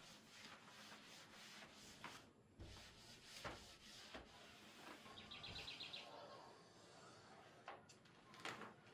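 Near silence: faint room tone with light rustles and taps, and a brief run of rapid high chirps, like a small bird twittering, about five seconds in.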